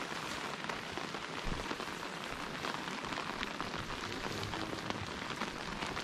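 Steady rain falling, with a dense ticking of single drops striking close by.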